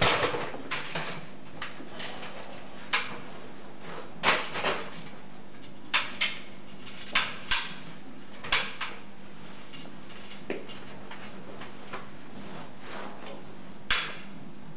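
Irregular sharp knocks and clanks, about a dozen, from a heavy concrete block being handled and lifted while a man climbs an aluminium stepladder. The loudest knock comes near the end, over a faint steady hum.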